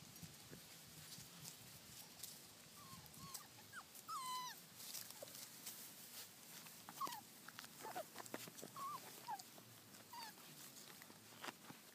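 Four-week-old Labrador Retriever puppies whimpering: a scattering of short, faint, high whines that bend in pitch, from about three seconds in to near the end, over light clicks and rustles in the grass.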